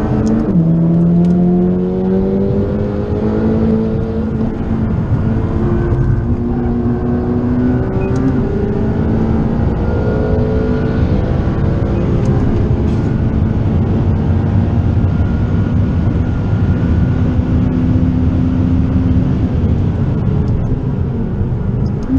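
Stage 1 tuned McLaren 540C's twin-turbo V8 heard from inside the cabin under hard acceleration on track. The engine note climbs and drops back at each gear change several times in the first half, then runs steadier at a lower pitch.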